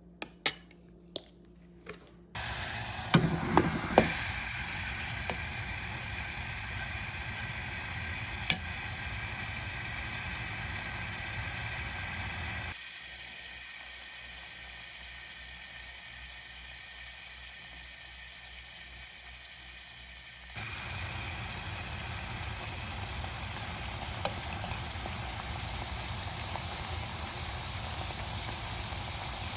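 Food sizzling in a hot pan, a steady hiss, with a few knocks and clinks of a utensil near the start. The hiss drops to a lower level for several seconds in the middle.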